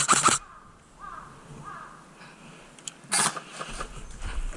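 Two short bursts of rapid clicking snaps, one at the start and one about three seconds in, typical of an airsoft gun firing. Crows cawing faintly in between.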